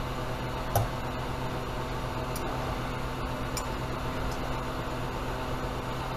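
A running appliance gives a steady low hum with an even hiss over it. A soft click comes a little under a second in.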